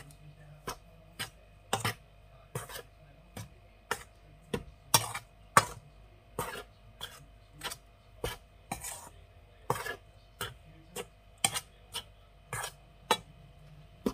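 Metal spoon clinking and scraping against a stainless steel bowl while stirring salt into flour, a steady run of clinks roughly two a second.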